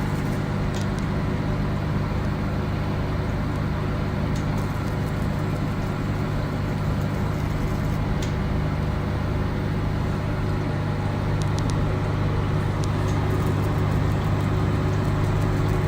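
Fractional CO2 laser machine running with a steady low hum, with a few faint clicks scattered through.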